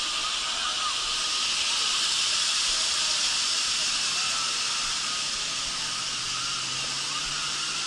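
Steady rushing hiss of water-park ambience at the top of a water-slide tower, with faint distant voices and shrieks. A faint low hum comes in near the end.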